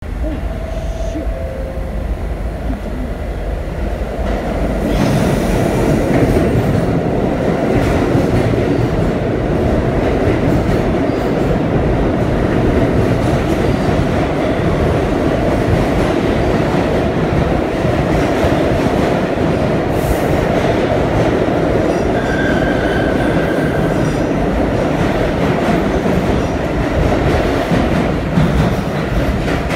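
R46 subway train pulling into an underground station: the rumble of its wheels on the rails builds up about five seconds in and stays loud as the cars run along the platform. A brief high squeal comes about two-thirds of the way through.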